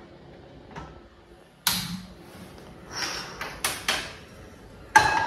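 Gas stove burner being lit and a frying pan handled on the hob: a few separate knocks and clicks. The loudest is a ringing metal clank near the end, as the pan meets the burner grate.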